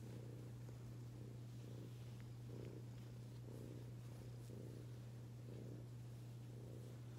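Ginger cat purring as it is stroked, the purr swelling and easing about once a second with each breath, over a steady low hum.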